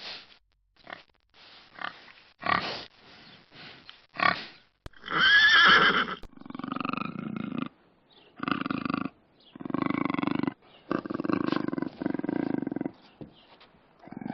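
Pigs grunting as they eat, in short irregular snorts, then a pony's loud whinny about five seconds in. It is followed by four long, rough, pulsing animal calls.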